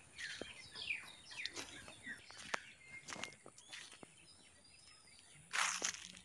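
Small birds chirping with quick falling and arching calls, with a few faint clicks, and a brief loud rustle about five and a half seconds in.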